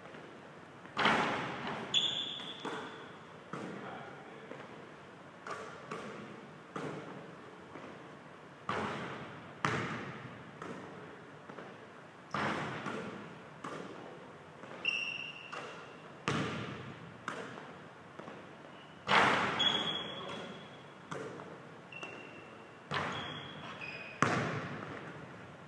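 Basketball bouncing and thudding on a hardwood gym floor at irregular intervals, each impact ringing on in the hall's echo. Short high sneaker squeaks come in now and then.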